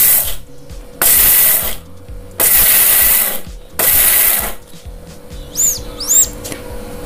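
Electric mixer grinder run on its pulse setting in four short bursts, each under a second, grinding roasted peanuts into a coarse crumb.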